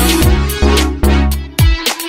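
Background music with a steady drum beat, about two hits a second, over deep sustained bass notes.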